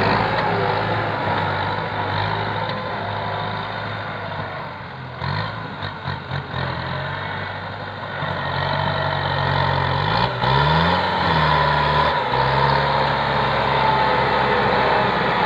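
Heavy diesel engine of earthmoving machinery running under work. It gives a few uneven knocks about five to seven seconds in, and its pitch rises and falls briefly about ten seconds in.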